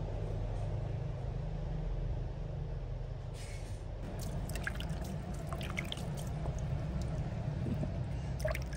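Water dripping and splashing onto a wet concrete floor as a baby monkey is washed by hand: scattered small drips from about four seconds in, over a steady low hum.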